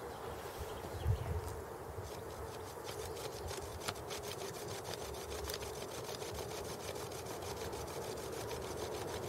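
Bow drill being worked back and forth, its wooden spindle grinding a hole into a piece of deer antler: a steady rubbing rasp, with a low bump about a second in.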